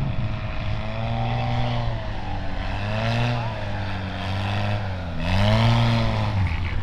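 Turbocharged 1.5-litre Honda Accord engine (Viking 195) with a reduction gearbox, driving the propeller of a light STOL aircraft on low approach. Its note rises and falls several times, and it is loudest about five seconds in as the plane comes closest.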